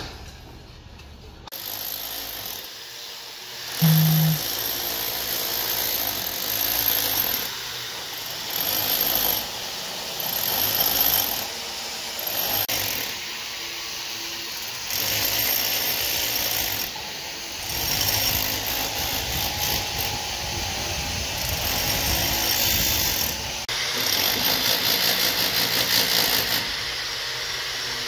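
Background music mixed with construction-site noise, with a handheld power tool running at times.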